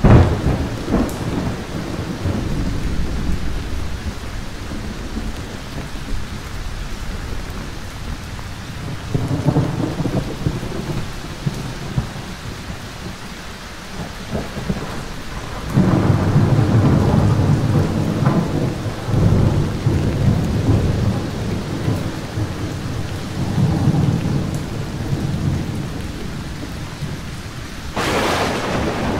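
Heavy thunderstorm: steady heavy rain with repeated thunder. A sharp crack opens it, a rumble follows about a third of the way in, the loudest and longest roll of thunder comes a little past halfway with a further rumble after it, and a bright crack comes near the end.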